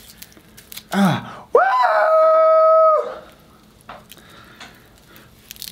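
A man's voice gives a short grunt, then a long, loud yell held on one high pitch for about a second and a half, a cry of exaggerated distress over fingers stuck in woven finger traps.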